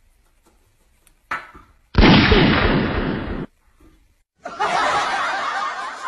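A toy pistol's gunshot sound: a short clatter, then about two seconds in one loud bang that fades over about a second and a half. Music starts about four and a half seconds in.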